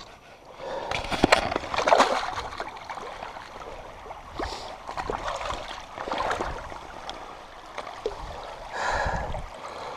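Hooked carp splashing in shallow creek water as it is landed, in several irregular splashes, loudest about a second or two in, over the steady trickle of the creek.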